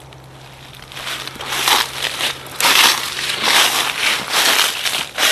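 Footsteps crunching through deep, dry fallen leaves and twigs, with brush scraping past. The crunches are irregular and start about a second in.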